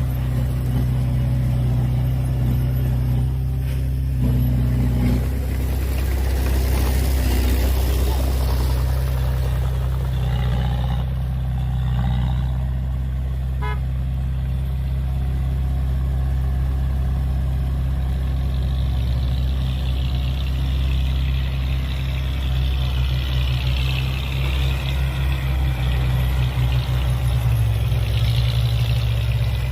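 Diesel engine of heavy earthmoving machinery running steadily at a low, even pitch.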